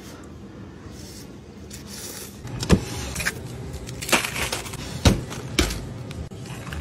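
Sealed plastic cups of ice being handled in a freezer case: a few sharp plastic knocks and clacks over a steady background hum.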